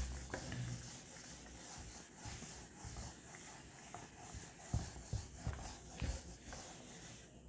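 Whiteboard eraser rubbing across a whiteboard in repeated faint wiping strokes.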